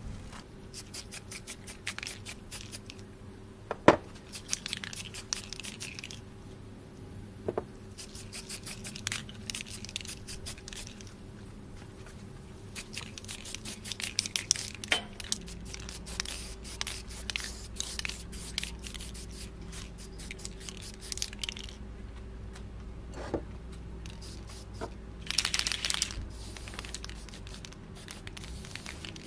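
Aerosol spray-paint can being shaken, its mixing ball rattling in quick runs of clicks, between short hisses of paint being sprayed onto steel parts. A sharp knock about four seconds in is the loudest sound.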